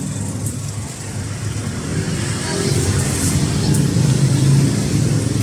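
A motor vehicle's engine running close by, its low rumble growing louder over the first few seconds, with a few light high clicks over it.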